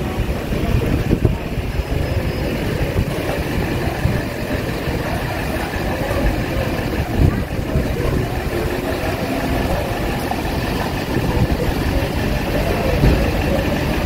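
Street noise: a motor vehicle's engine running steadily nearby, with a continuous low rumble.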